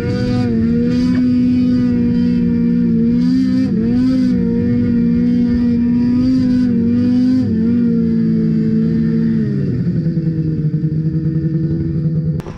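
Ski-Doo 600 RS snowmobile's two-stroke engine held at high revs, its pitch wavering slightly as the sled skips across open water. About three-quarters of the way through, the revs drop to a lower, steadier note.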